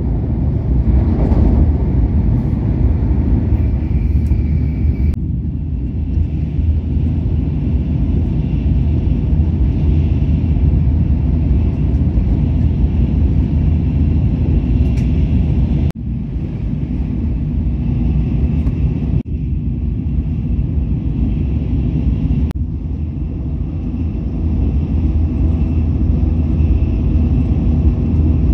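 Shinkansen bullet train running at speed, heard from inside the passenger cabin: a steady low rumble with a faint high whine. The level drops briefly three times past the middle.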